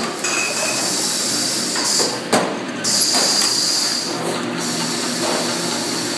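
Jarring-line conveyor and its tunnel unit running, with a steady high-pitched hiss and whine that cuts out briefly twice. A few knocks of glass jars sound about two and three seconds in.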